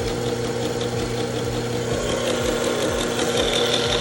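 Honda Gold Wing GL1500's flat-six engine idling steadily, just started to test a repaired alternator.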